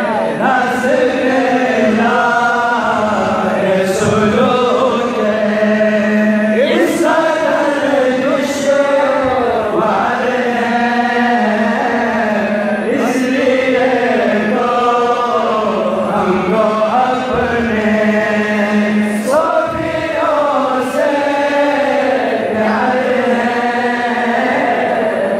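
A man chanting a Sufi devotional anthem (tarana) through microphones and loudspeakers, in melodic phrases that follow one after another without a break.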